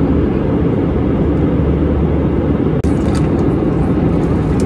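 Airbus A320-200 cabin noise: a steady low rumble of engine and air noise, with a few light clicks about three seconds in.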